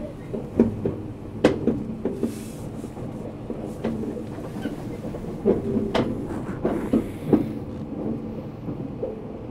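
Running noise heard inside an E257 series electric train: a steady hum broken by sharp clacks and knocks from the wheels on the track, at irregular intervals.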